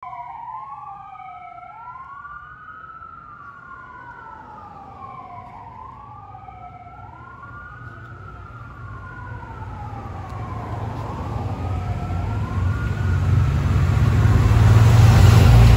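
Wailing police sirens, several overlapping tones sweeping up and down, fade out after about thirteen seconds. Meanwhile the engines of a police motorcycle escort grow steadily louder as the formation approaches.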